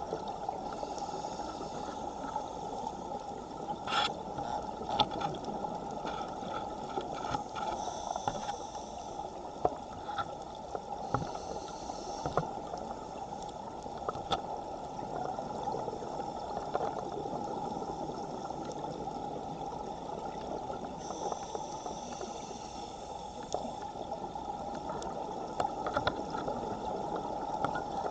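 Underwater sound recorded through a dive camera's housing in a strong current: a steady, dull rushing noise with scattered sharp clicks, the strongest about four seconds in.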